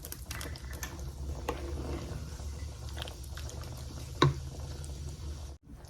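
Pot of thick chili simmering, with scattered soft bubbling pops and one sharper pop about four seconds in, over a steady low hum.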